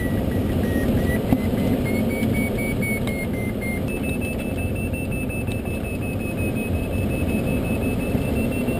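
Glider variometer beeping, its pitch stepping up about two seconds in and again near four seconds as the climb rate increases in lift, over a steady loud rush of wind and turbulence around the Swift Lite-E's cockpit.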